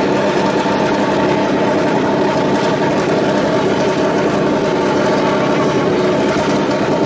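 Mercedes Formula 1 car's 1.6-litre turbocharged hybrid V6 idling steadily while the car stands still.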